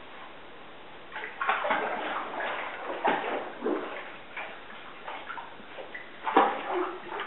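Bathwater splashing and sloshing in irregular bursts as a small Morkie dog paddles in a bathtub, with a sharp click about six and a half seconds in.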